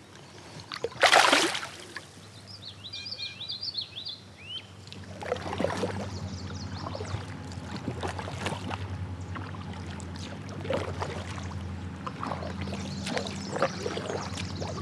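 A smallmouth bass splashes loudly in shallow river water about a second in as it is let go from the hand, and a few bird chirps follow. From about five seconds in, a kayak paddle dips and pulls through the water in repeated strokes, splashing and dripping.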